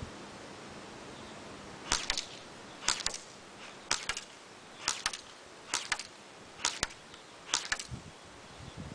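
Echo 1 Red Star AKM airsoft rifle firing single shots: seven sharp snaps about a second apart, starting about two seconds in.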